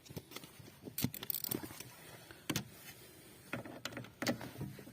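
Ratchet wrench with a 13 mm socket clinking and clicking as it is fitted onto and worked against the middle bolt of a Lada Granta's steering shaft universal joint. It makes a handful of irregular metallic clicks.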